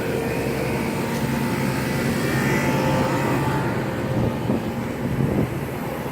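Refrigeration condensing unit running steadily: the hum of its Copeland reciprocating compressor under the rush of the condenser fan.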